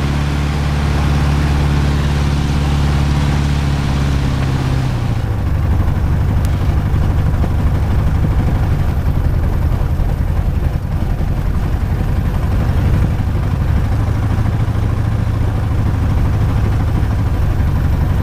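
Jodel DR1050's piston engine held at a burst of power, then about five seconds in throttled back to a lower, rough and uneven running that sounds like a tractor: the engine is running badly, with a vibration that new spark plugs have not cured.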